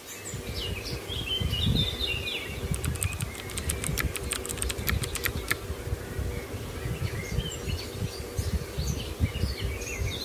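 Birds chirping over a steady low rustling noise, with a quick run of sharp clicks about three to five seconds in.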